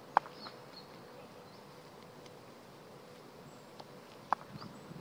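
A cricket bat tapped on an asphalt pitch: a few sharp taps, the loudest about a quarter second in and another near the end, over a faint steady hum.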